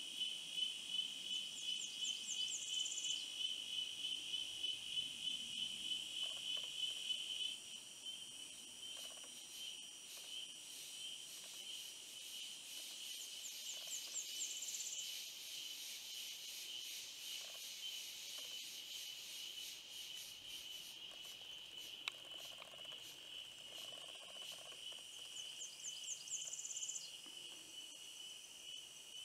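Chorus of insects shrilling steadily, a high pulsing trill that smooths out and drops a little in level about seven seconds in. A short, higher buzzy phrase comes back about every twelve seconds, near the start, the middle and the end.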